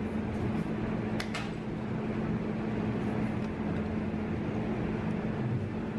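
Hand tin snips cutting thin sheet steel, trimming the corners off a repair panel: a few faint clicks, two close together about a second in. Under them runs a steady machine hum with a constant low drone.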